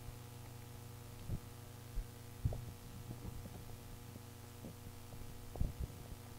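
Steady low electrical hum picked up by a handheld microphone lying on a lectern, with scattered soft low thumps as the microphone and lectern are bumped and handled.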